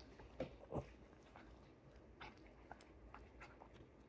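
Small dog licking a person's ear right at the microphone: wet tongue smacks and clicks, two louder ones in the first second, then fainter irregular licks.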